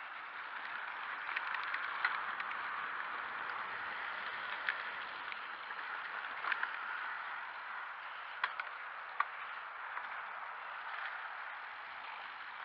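Cannondale full-suspension mountain bike being ridden: a steady hiss of tyre and air noise, with scattered sharp ticks and rattles from the bike over bumps.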